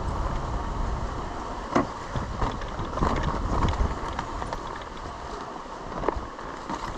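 Dirt bike working over a rough, rocky trail: scattered knocks and clatter from the tyres and suspension hitting rocks, over wind noise on the microphone. The low rumble is heavier in the first few seconds and eases off after about four seconds, with a sharp knock near the end.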